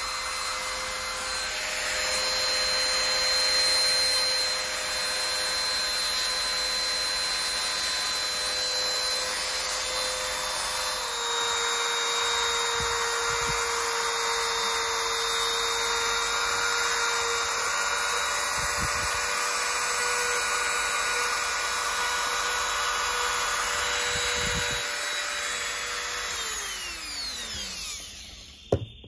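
Handheld rotary tool (Dremel-type) running with a steady high whine as its cutting bit grinds into a helmet's foam speaker pocket. Near the end the tool is switched off and winds down with a falling whine, followed by a single click.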